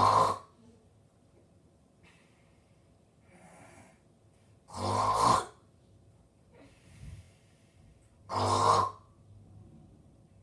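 Snoring: loud, rasping snores about every three and a half seconds, one tailing off as the sound begins and others about five and eight and a half seconds in, with faint breaths between them.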